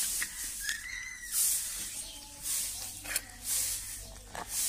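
Rhythmic swishing of a broom sweeping a concrete floor, about one stroke a second, with a short high chirp about a second in.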